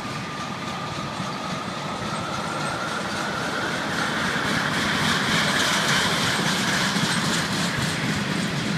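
Loaded freight flatcars rolling past: a steady rush of steel wheels on rail with faint clickety-clack, getting louder about halfway through. A thin high wheel squeal runs underneath, rising slightly in pitch.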